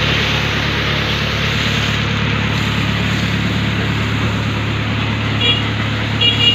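Fire pumper's engine and pump running steadily, with the hiss of water spraying from a hose nozzle onto concrete. A few short high chirps come near the end.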